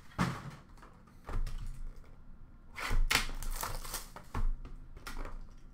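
A shrink-wrapped trading-card box being handled and unwrapped: plastic wrap crinkling and cardboard clicks and knocks, in a handful of separate bursts.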